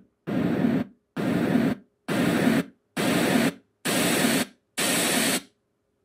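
RENPHO white noise sound machine playing six short bursts of white noise, about one a second with silent gaps, as it steps through its different white noise frequencies. The later bursts carry more high hiss.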